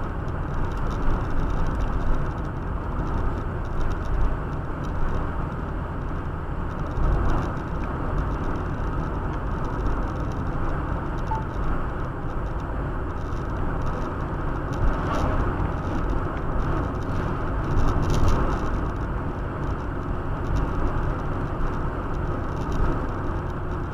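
Steady road and engine noise heard from inside a moving car on the highway, a low rumble with small rises and falls in level.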